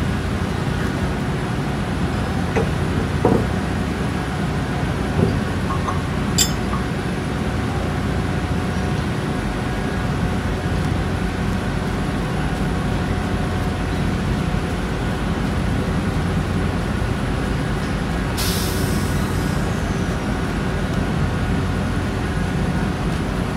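Machinery running with a steady low drone and constant hum. A few light clicks come in the first seven seconds, and about eighteen seconds in there is a sharp hiss of escaping air lasting about a second and a half.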